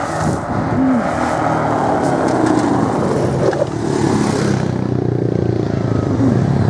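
Quad bike (ATV) engines driving past close by, the engine note rising and falling as they pass.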